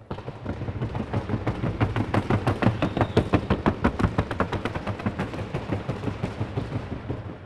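Hooves of a Colombian trocha mare striking a wooden sounding board (tabla) in rapid, even beats, several a second, loudest in the middle and dying away near the end. The trocha is a fast four-beat gait, and the evenness of the hoofbeats on the board is what the judges listen for.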